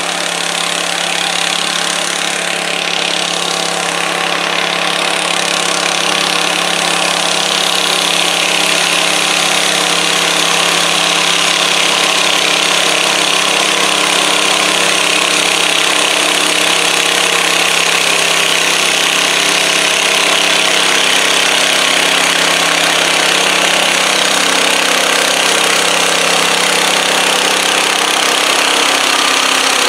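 Garden tractor engine running steadily under load as a vintage International Harvester Cub Cadet pulls the weight sled down the dirt track. It grows a little louder over the first several seconds, then holds an even drone.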